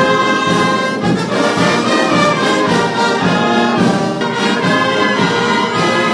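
Brass band playing slow music with held notes.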